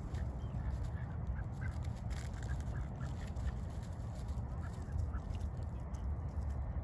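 White domestic ducks giving many short, scattered quacks, over a steady low rumble.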